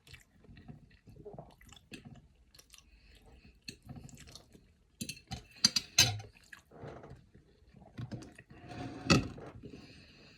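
Close-up chewing and eating sounds, broken by scattered sharp clicks, the loudest a few about six seconds in and one about nine seconds in.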